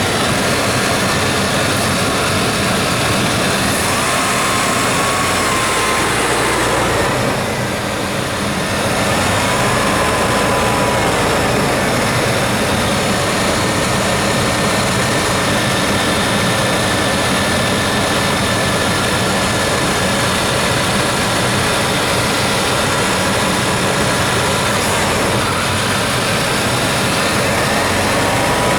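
1994 Chevy Silverado's 350 TBI small-block V8 running, dropping in level briefly about seven seconds in and then picking back up. The owner says the engine is running very rich and wants to die when the throttle is tapped quickly.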